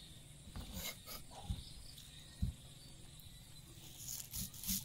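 Kitchen knife slicing fresh bamboo shoot on a thick wooden chopping block: a few soft knocks as the blade meets the board, coming closer together near the end. A faint steady insect hum runs underneath.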